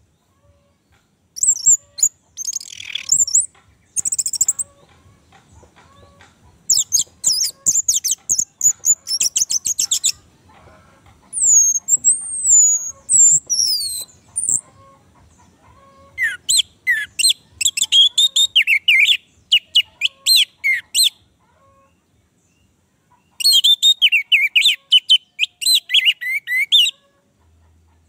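Orange-headed thrush singing: about five phrases of rapid, high-pitched notes, some of them sliding whistles, with short pauses between the phrases.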